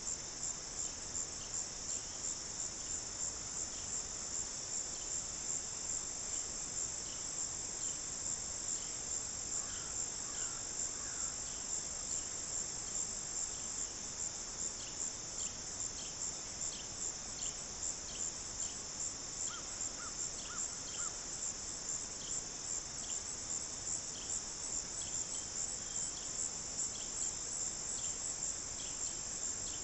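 Night insect chorus of crickets: a steady high-pitched trill that pulses a few times a second, with fainter chirps from other insects mixed in.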